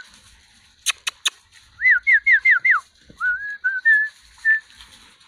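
Clear whistled notes: five quick notes in a row, each sliding down in pitch, followed by a few shorter level or rising whistles. Three sharp clicks come just before them, about a second in.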